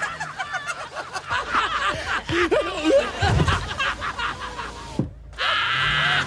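Human-sounding laughter voiced for horses: several voices snickering and chuckling at once. After a brief break about five seconds in comes one loud, drawn-out laugh.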